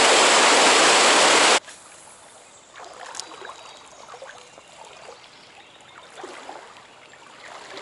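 Loud rushing water for about a second and a half, cutting off abruptly. After that, a trout stream trickles and gurgles quietly, with a few small ticks.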